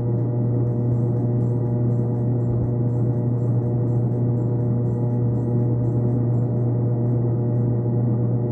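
A steady drone of several held tones over a strong low hum, with faint regular ticking high above it.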